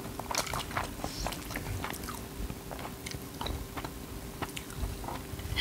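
A person chewing mouthfuls of pork adobo and rice, with many small irregular clicks and smacks.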